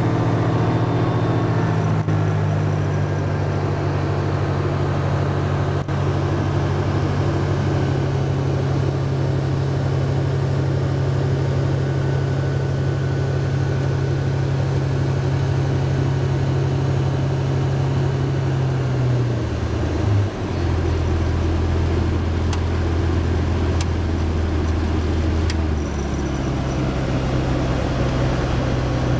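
Ultralight plane's piston engine running steadily, heard from inside the cockpit with airflow noise. About twenty seconds in its note drops to a lower, steady pitch, and it changes again a few seconds later.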